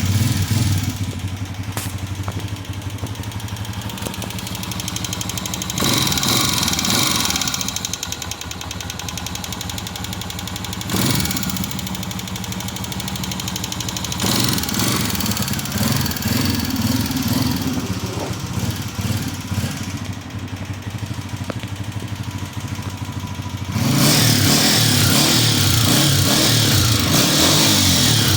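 Honda CG 125's single-cylinder four-stroke engine running with its 'tik tik' engine noise, blipped up a couple of times and held at higher revs near the end. The mechanic puts the noise down to the tappet rods, not the piston, rings or cam gear.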